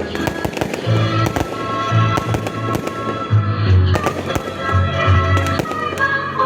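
Fireworks going off in quick succession, many sharp bangs and crackles, with music playing underneath.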